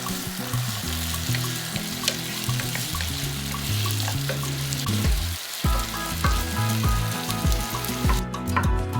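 Food sizzling as it fries in a pan, under background music with a steady bass line. Near the end the sizzle stops and only the music remains.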